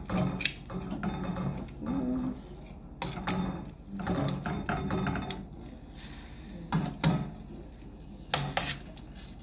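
Metal tongs clicking and scraping against a stainless steel pan as dried egg noodles are stirred and pulled apart in broth, in irregular clinks.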